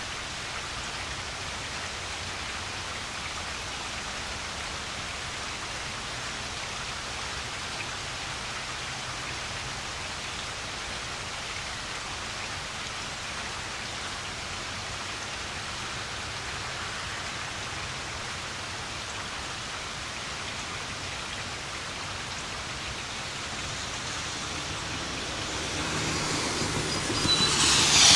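Steady rain falling, a constant even hiss. Near the end a car approaches on the wet road and passes, its tyres hissing louder and louder until they drown out the rain.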